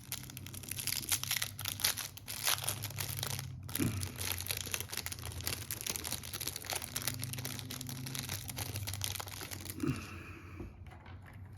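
Plastic packaging crinkling and crackling as it is handled, in irregular bursts for about ten seconds, easing off near the end.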